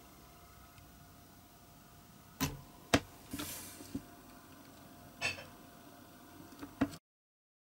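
Small handling sounds: a few sharp clicks and light taps as fingers work a die-cast metal model body on a cutting mat, with a brief dry rustle as powder is rubbed from the fingertips onto a glued joint. The sound cuts off to dead silence near the end.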